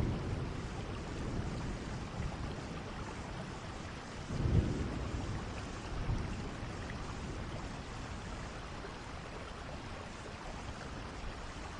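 Steady rain falling, an even hiss throughout. Low rumbles of thunder fade out at the start and swell again about four and a half seconds in.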